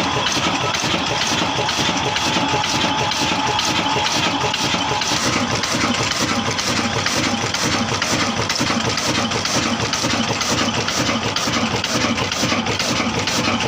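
Old 22 HP, 275 RPM single-cylinder 'kala' black diesel engine running steadily at its slow governed speed, with an even, rhythmic beat after a hard cold start.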